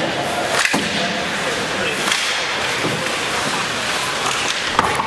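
Ice hockey play at the boards: a steady scrape and hiss of skates on ice, a sharp crack of stick on puck less than a second in, and a louder knock near the end as players come into the boards.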